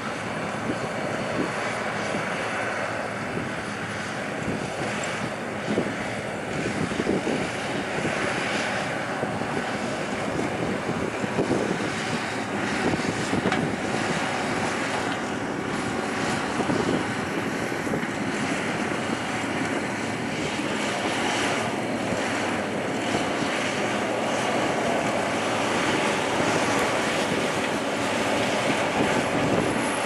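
Oxbo Pixall seed corn harvester running in the field: a steady engine-and-machinery din from the picking head and the ear elevator at work, with light irregular rattling.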